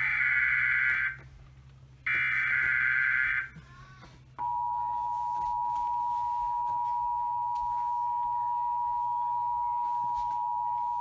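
Emergency Alert System tones announcing a severe thunderstorm warning: two short bursts of screeching SAME header data, then about four seconds in the steady two-tone EAS attention signal begins and holds.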